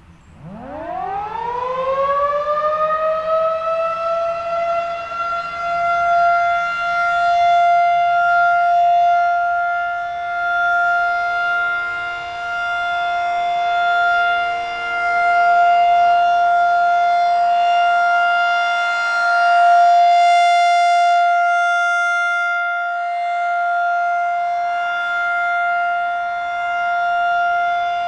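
Federal Signal 2001-SRN rotating outdoor warning siren winding up from a stop and then holding a steady alert tone. The pitch climbs over the first three or four seconds and then stays level, while the loudness swells and fades as the rotating head sweeps past.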